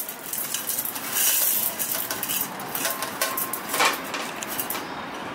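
Dry-roasted dals, whole dried red chillies, curry leaves and seeds poured from a steel bowl into a steel mixer-grinder jar: a rattling, rustling pour, followed by a few clinks and knocks of metal as the jar's lid is handled.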